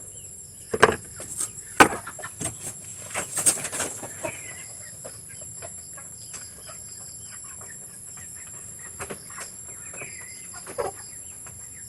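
Chickens clucking now and then, with a few sharp pops in the first four seconds, over a steady high-pitched insect drone.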